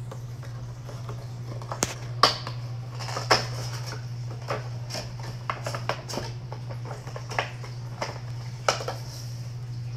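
A cardboard Funko Pop box with a clear plastic window being opened by hand: the top flap lifted and the packaging pulled apart, giving a string of crackles and sharp taps, the loudest a little over two seconds in, about three seconds in and near the end.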